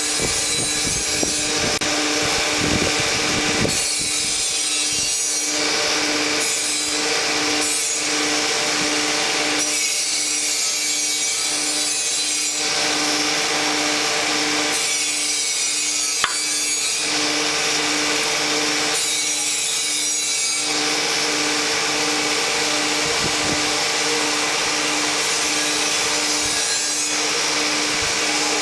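Machinery running steadily while driving a 24-inch line-stop stopping head into a steel pipe. A low hum pulses a little under twice a second, under a hiss that comes and goes every second or two.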